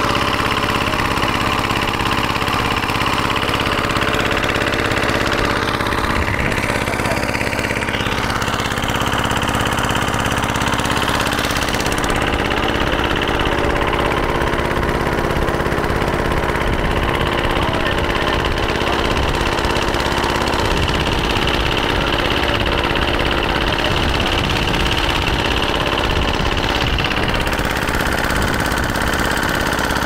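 Engine of a wooden river boat running steadily while the boat is under way.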